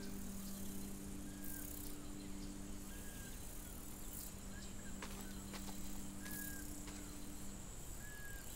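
Quiet ambient film score: a low drone of two steady held tones that fades out near the end, with faint short chirps recurring about once a second over a soft hiss.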